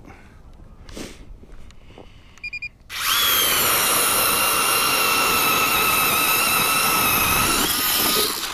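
StrikeMaster Lithium cordless electric ice auger drilling through lake ice: a loud, steady motor whine that starts about three seconds in, just after three short beeps. It runs for about five seconds, rises briefly in pitch near the end, then winds down.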